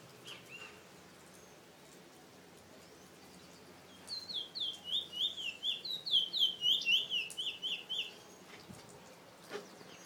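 Caged Trinidad bullfinch (chestnut-bellied seed finch) giving a couple of short chirps, then, about four seconds in, a fast four-second run of clear whistled notes, each falling in pitch, at about three or four a second.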